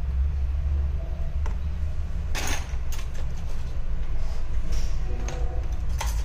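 Steady low hum with a few light clicks and taps as small screwdrivers and metal phone parts are set down on a silicone repair mat.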